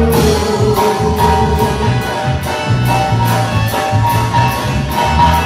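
Live Mexican regional band playing an instrumental passage: sustained melody tones over drums keeping a steady beat, with no singing.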